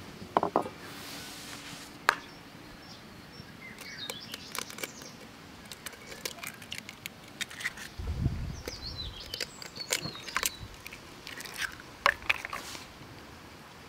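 Eggs being cracked into a glass bowl: sharp taps and small crunches of eggshell, with birds chirping in the background.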